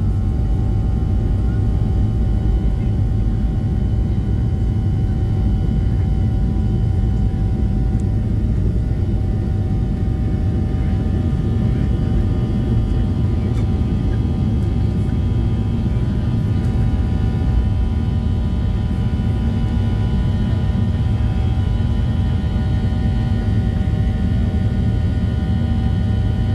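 Two CFM56-7B turbofans of a Boeing 737-700 at takeoff thrust, heard from the cabin over the wing: a steady, loud roar with a steady fan whine and runway rumble during the takeoff roll. The jet lifts off in the latter half.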